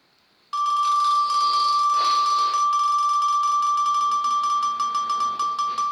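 Roulette wheel spinning: a steady ringing tone over rapid ticking that starts about half a second in and gradually slows as the wheel winds down.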